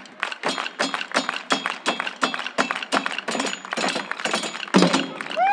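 Fast junk percussion: drumsticks rapidly striking plastic buckets, a metal pail, plastic barrels and a stepladder, ending with a loud final hit near the end. A shout from the crowd starts just as it stops.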